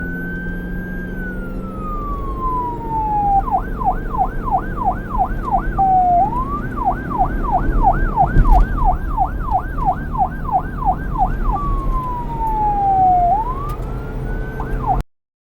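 Police car siren alternating between a slow wail, rising and falling over a couple of seconds, and a fast yelp of about four sweeps a second, over a low rumble. It cuts off abruptly near the end.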